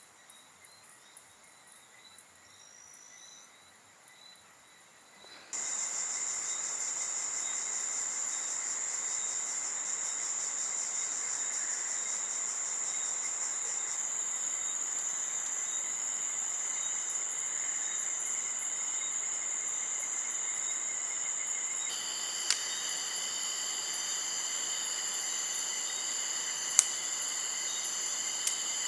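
Insects chirping in a steady, high-pitched chorus, starting abruptly about five seconds in after a few faint bird chirps. More layers of insect song join at about 14 and 22 seconds, and a few sharp clicks come near the end.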